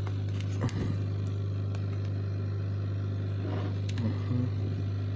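A steady low electrical hum, with a few small clicks and scrapes as a spudger pries at the edge of an Oysters tablet's touchscreen glass.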